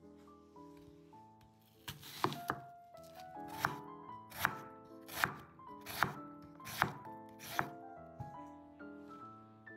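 Knife cutting through food on a cutting board: about eight sharp strokes at a steady pace of roughly one every 0.8 seconds, starting about two seconds in and stopping near the end, with background music.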